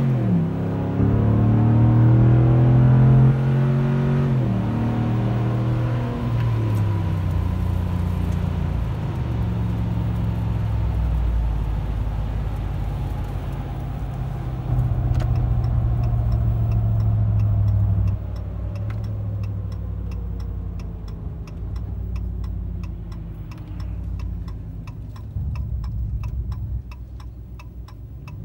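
A 2017 Ram 1500's 5.7-litre Hemi V8 running through Carven Competitor mufflers, heard from inside the cab while driving: the engine note climbs under throttle and drops back at gear changes, with a low rumble. A steady ticking starts about two-thirds of the way through.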